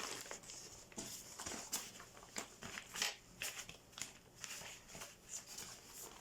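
Faint rustling and scattered light clicks from a soft insulated cooler bag being handled.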